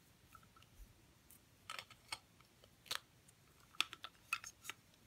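A handful of faint, sharp clicks and taps of plastic being handled, irregularly spaced: a DohVinci deco pop tube being fitted into its plastic styler.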